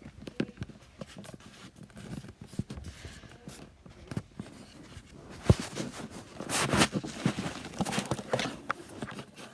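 Footsteps and handling noise: scattered light taps and rustling, with one sharp knock about five and a half seconds in.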